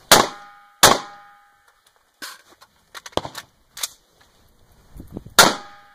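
Rifle shots fired close by: two in quick succession right at the start and a third near the end, each followed by a short ringing tail. Quieter sharp knocks fall in between.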